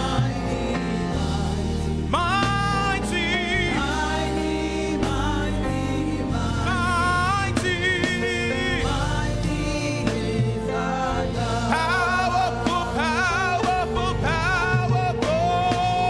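Gospel praise and worship music: a singer with vibrato backed by a band with bass and drums.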